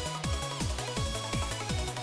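Electronic dance music with a steady, fast kick drum at about four beats a second under a bass line and synth notes.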